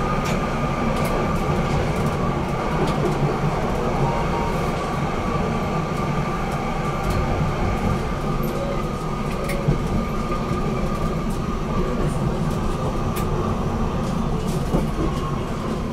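BN GTL8 articulated tram running along its track: a steady rumble with a thin steady whine above it and scattered light clicks.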